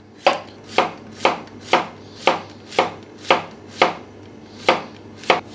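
Chef's knife slicing a courgette into thin rounds on an end-grain wooden chopping board, a steady rhythm of about two cuts a second, each ending in a sharp knock of the blade on the wood, with a brief pause a little after the middle.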